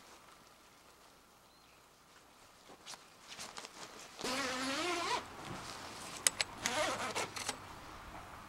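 Tent pegging: a few sharp metallic clicks and clinks of tent stakes being handled and set in the ground, with a brief rising, wavering whine in the middle.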